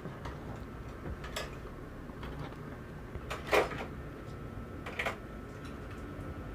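Three light clicks and taps from small tools and parts being handled while soldering a tiny microphone's two wires, the middle one the loudest, over a faint low hum.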